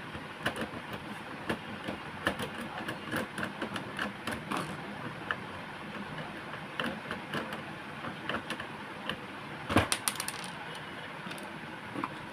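Irregular light clicks and taps of a screwdriver and plastic parts as a screw is taken out of an Epson L380 inkjet printer's casing, with one sharper knock about ten seconds in.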